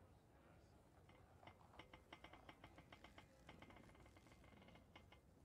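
Near silence with faint, quick computer-keyboard clicking, several clicks a second, starting about a second and a half in and stopping shortly before the end.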